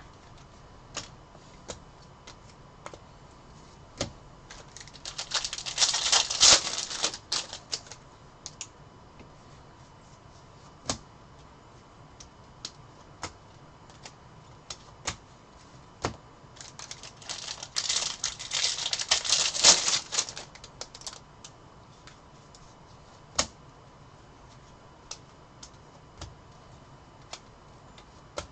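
Trading cards and packs being handled at a table: scattered clicks and taps as cards are set down and sorted, with two longer bursts of dense rustling and clicking, about five seconds in and again around seventeen seconds.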